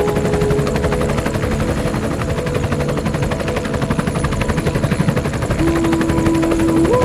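Helicopter in flight: a fast, even rotor chop over a steady engine hum, the hum shifting pitch in steps near the end.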